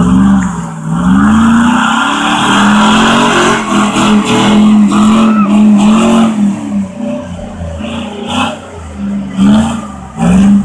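Lifted 4x4's engine revving hard in repeated surges, its pitch rising and falling, held high for a few seconds in the middle, as it churns through a flooded sand-and-mud hole.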